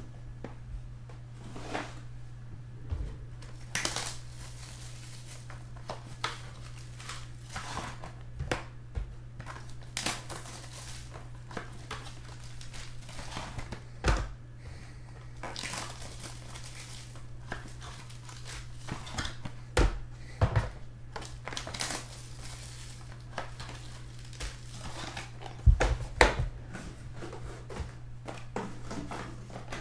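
Foil card-pack wrappers crinkling and rustling as they are handled, with a few knocks as sealed card boxes are moved and set down. A steady low hum runs underneath.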